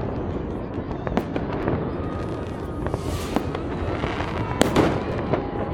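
New Year's fireworks going off in quick succession: many sharp bangs and crackles over a steady rumble. There is a hissing stretch about three seconds in, and the loudest bang comes a little after four and a half seconds.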